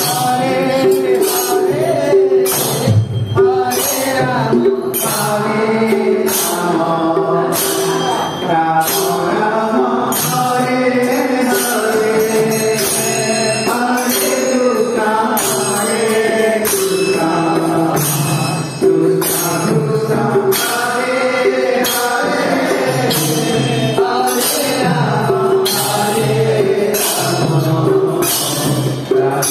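Odia devotional bhajan: voices singing a melody over instrumental accompaniment, with a steady percussion beat and jingling, tambourine-like strokes.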